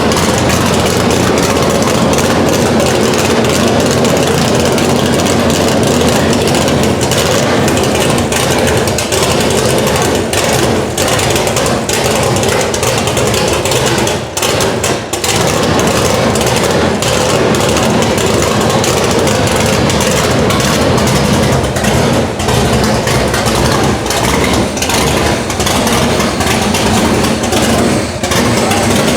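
Big-block Chevrolet V8 with a freshly installed Edelbrock Pro-Flo 4 electronic fuel injection, running loud and steady at idle on its first runs, its injection not yet fine-tuned. The level dips briefly about halfway through.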